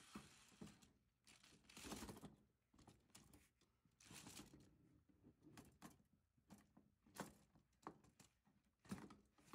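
Near silence, broken by faint, scattered knocks and short rustles.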